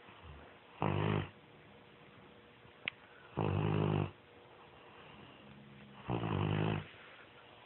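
Bloodhound snoring: three snores, each about half a second long, roughly two and a half seconds apart, with a short click just before the second.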